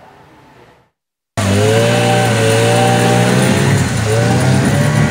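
A motor vehicle's engine running loudly, its pitch wavering up and down, starting abruptly after a brief moment of silence about a second in.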